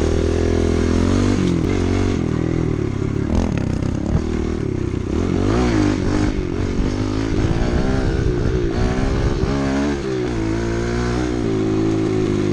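Small four-stroke single-cylinder pit bike engine running under a rider, its pitch rising and falling unevenly as the throttle is opened and eased off.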